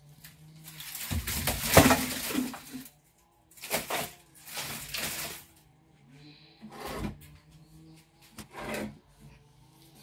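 Dry grass rustling and sticks of firewood knocking together as kindling is laid in a hearth, in several short spells, the loudest with a sharp knock about two seconds in, over a faint steady low hum.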